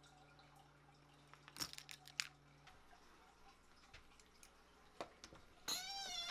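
A few faint clicks, then near the end a dog's high, wavering whine.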